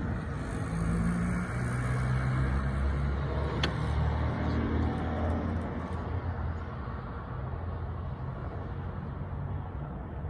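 Low engine rumble with a steady hum, louder in the first half and easing off after about six seconds, with one short click partway through.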